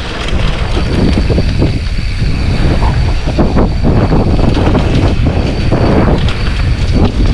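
Mountain bike riding down a rough dirt trail: wind rushing over the microphone, with tyre rumble and the bike rattling and knocking over bumps.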